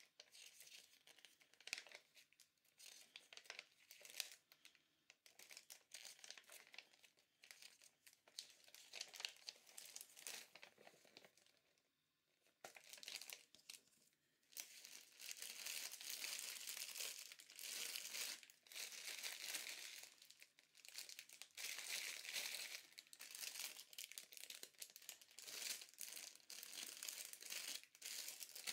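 Thin plastic packaging crinkling as it is handled: clear plastic bags holding model-kit parts sprues, lying on bubble wrap. Irregular crinkles in the first half, a short quiet spell about twelve seconds in, then busier, almost continuous crinkling.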